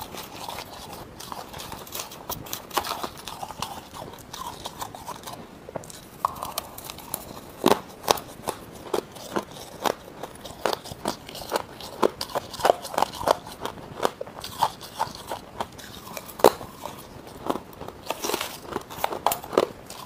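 Close-up crunching as frozen frost ice is bitten and chewed: a run of sharp, brittle crunches, sparse at first and coming quickly, two or three a second, from about six seconds in. Shortly before the end a metal spoon scrapes and scoops through the crushed ice in its plastic tub.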